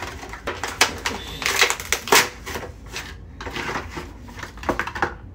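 Rigid clear plastic packaging of a facial cleansing brush crackling and clicking as it is pried open by hand, in irregular sharp crackles.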